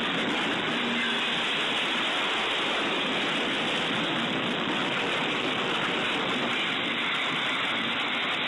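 Steady, loud rushing noise with no distinct knocks or impacts, from the audio of a locomotive cab camera recording a collision with a truck on the track.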